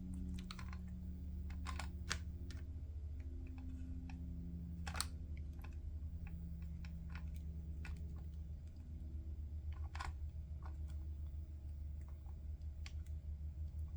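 Scattered small clicks and taps of hard plastic headset parts being handled and worked apart with small tools, over a steady low hum.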